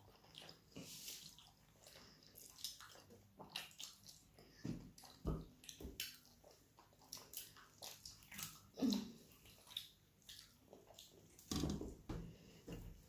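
Close, wet chewing and lip-smacking of people eating rice and dal by hand, with fingers squishing and mixing the food on a steel plate. The sound is a string of short, irregular smacks and squelches, the loudest about two-thirds of the way through.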